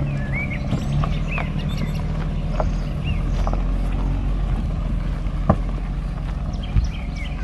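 Nissan March's small petrol engine running low and steady as the car is driven slowly to get it out of mud, with a few sharp knocks from the car over the rough ground.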